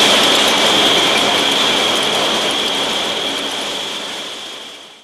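Machinery running: a dense, steady mechanical clatter and hiss with a high steady whine, fading out over the last two seconds.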